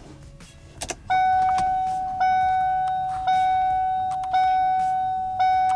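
Car warning chime ringing: one clear bell-like tone struck about once a second, each strike fading slowly, starting about a second in. A few light clicks come just before the first strike.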